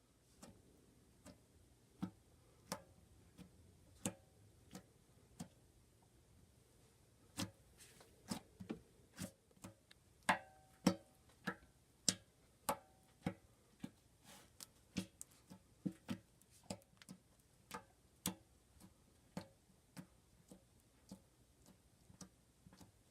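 Slime being poked and pressed, giving a string of irregular sharp pops and clicks, a few with a short ringing pitch, more frequent and loudest in the middle.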